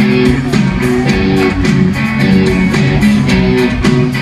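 Rock band playing live: a repeating electric guitar riff over a steady drum beat, the song's instrumental intro with no vocals yet.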